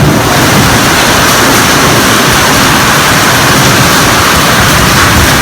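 Heavy summer-storm rain pouring down in a loud, steady hiss.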